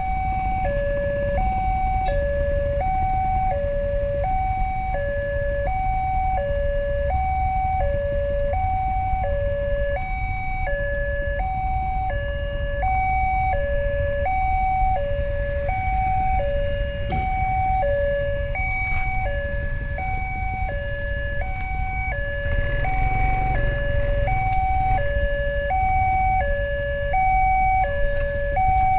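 Railway level-crossing warning alarm sounding from the pole-mounted speaker: an electronic two-tone alarm with the two pitches alternating about every half second. Underneath is a low rumble of road traffic, which grows louder for a few seconds about two-thirds of the way through.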